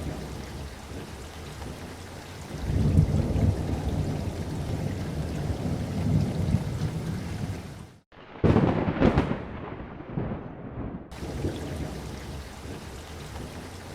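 Steady rain with rolling thunder, low rumbles swelling and fading. About eight seconds in the sound cuts out for a moment and comes back with a louder rumble that dies away over a couple of seconds.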